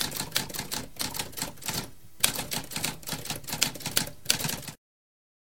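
Typewriter keys clacking in quick succession, with a brief pause about two seconds in; the typing stops a little before the end.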